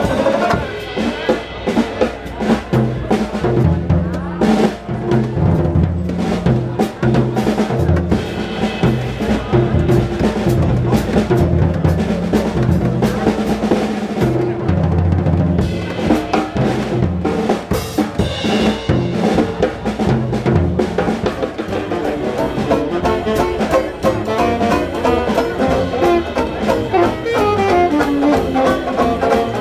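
Live trad jazz with the drum kit to the fore: busy snare and bass-drum playing with rolls and rimshots, over a tuba bass line; the saxophone comes in toward the end.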